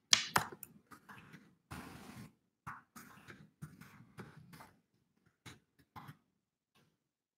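A run of close clicks, taps and rustling handling noises at a desk, right by the microphone, with the sharpest clicks at the very start; they thin out and stop about six seconds in.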